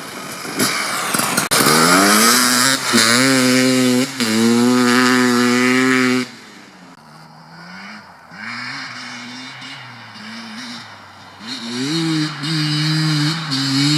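Beta RR 300 two-stroke enduro bike with an FMF exhaust revving hard: the pitch climbs and is held high, with two brief breaks. About six seconds in it drops off to a faint, wavering engine note as the bike rides off into the distance, then rises and is held high again near the end.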